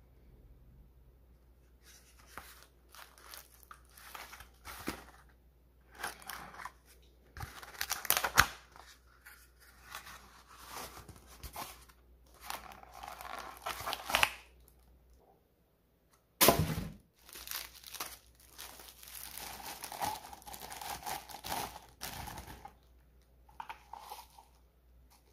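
Plastic bag and bubble wrap crinkling and being torn open, with cardboard box flaps handled, in irregular bursts of rustling. About two-thirds of the way through, after a brief pause, comes one short, sharp, loud noise.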